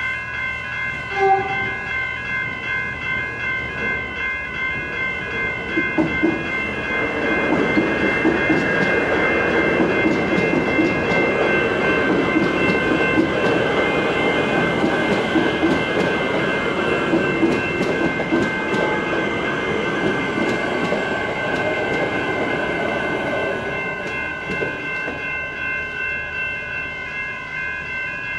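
Suburban electric train running on the elevated rail viaduct overhead and pulling into the station. Its rumble builds about six seconds in, holds loud through the middle and eases off near the end, over a steady, pulsing high-pitched tone.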